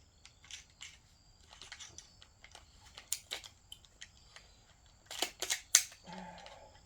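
Metallic clicks and clacks of an AR-style rifle being handled and its action worked, with a quick run of louder clicks about five seconds in, as the shooter checks why the bolt will not lock back on an empty magazine.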